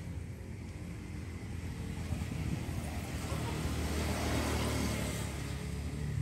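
A motor engine passing by, a low rumble that swells to its loudest in the middle and then eases off.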